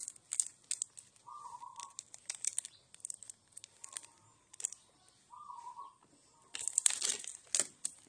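Close-up eating sounds from a bowl of noodle soup: irregular wet clicks and crackles of chewing and utensils, with a longer noisy slurp near the end. A short warbling chirp sounds twice in the background.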